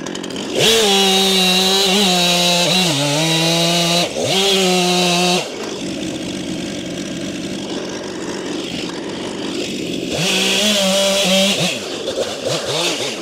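Stihl chainsaw idling, then run at full throttle for about five seconds, cutting the buttress flares off the base of a tree, its engine note sagging under load. It drops back to idle, runs flat out again for a second and a half near the end, and finishes with a few quick throttle blips.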